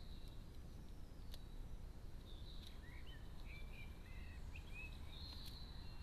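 Faint songbirds chirping in the background, a run of short chirps in the middle and a thin higher note near the end, over a low steady rumble, with a couple of brief sharp clicks.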